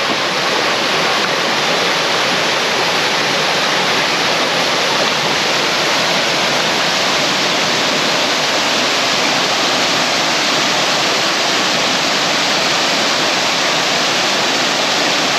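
Steady rushing of a creek and waterfall, loud and unbroken.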